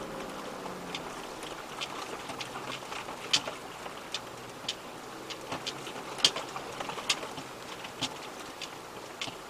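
Tyres of a 4x4 crawling slowly over a rough gravel track, with small stones crunching and popping out from under them in irregular sharp clicks. The engine is barely heard.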